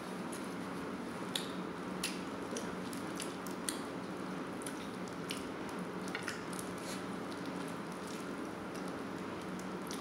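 A person eating by hand, with wet chewing and lip smacks and scattered small sharp clicks, over a steady low hum.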